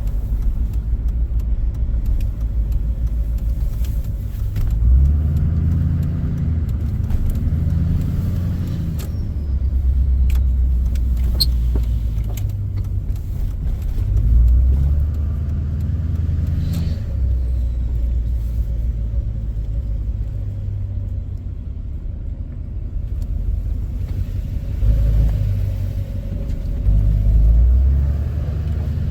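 2006 LBZ Duramax 6.6-litre V8 turbo-diesel pickup driving, a steady low rumble of engine and intake that swells several times as the truck gets on the throttle.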